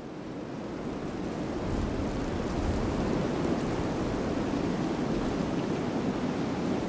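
A steady, low rushing noise that fades in over the first couple of seconds and then holds even.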